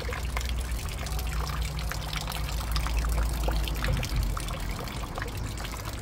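Manneken Pis replica fountain: a thin stream of water splashing and trickling steadily into its stone basin, with a low rumble underneath.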